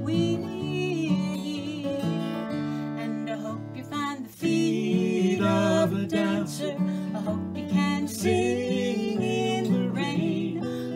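A woman singing a slow song with acoustic guitar accompaniment, with a brief break in the music about four seconds in.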